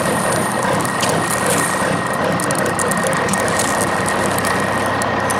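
Plastic wheels of a toy dumper truck rolling and grinding over rough, gritty concrete as it is pushed by hand, a steady rumble throughout.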